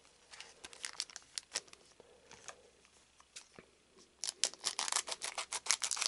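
Foil trading-card booster pack wrapper crinkling as it is handled and torn open. The crackles are scattered at first, then come thick and fast from about four seconds in.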